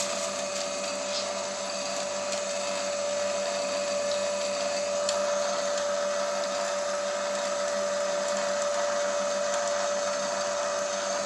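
Small electric screw oil press running steadily as it presses almonds, its motor and screw giving a steady whine over a low hum.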